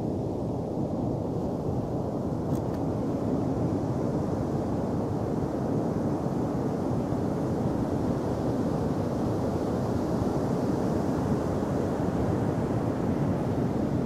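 Steady low rush of wind on the microphone mixed with surf breaking on the shore.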